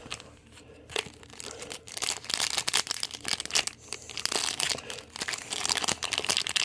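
Crinkling and tearing of plastic trading-card pack wrappers handled at close range, fainter at first and busier from about two seconds in.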